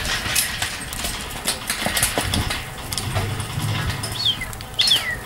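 Sheep jostling in steel-panel yards: hooves scuffling on dirt and the rails knocking and rattling as the mob pushes against the panels. A low hum comes in around the middle, and a few short, falling chirps sound near the end.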